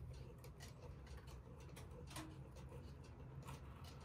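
Faint ticking of a one-day cuckoo clock, a run of short clicks several times a second over a low steady hum.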